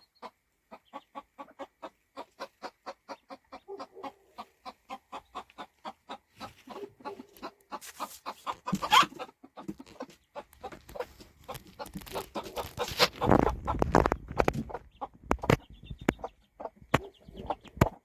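Hen clucking in a rapid, even run of about four to five clucks a second, the call of a mother hen with her chicks. Louder bursts of rustling and knocking come in through the second half, and faint high peeps near the end.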